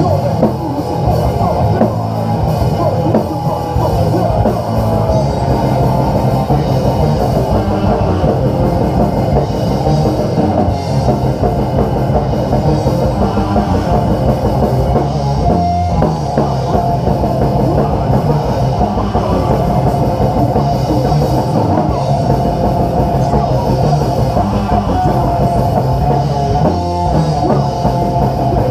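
Heavy metal played live by a small band: distorted electric guitars over a drum kit, loud with a fast, steady beat.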